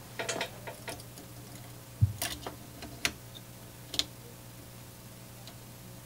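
Scattered small clicks and taps of component leads being pushed into and bent over on an eyelet circuit board held in a helping-hands stand, with one dull knock about two seconds in.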